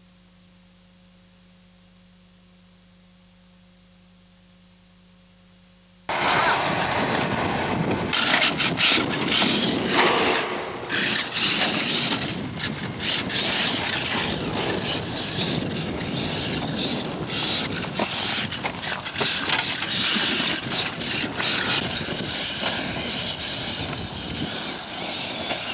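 Faint steady hum, then about six seconds in the loud sound of a Traxxas E-Maxx electric RC monster truck driving hard over loose dirt cuts in suddenly. Its electric motors run and its tyres churn and throw up dirt and gravel, with many short crunches and spikes.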